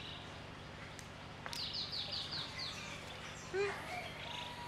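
A bird gives a quick run of five short, high, falling chirps, then a brief louder call about three and a half seconds in, over steady faint outdoor background noise.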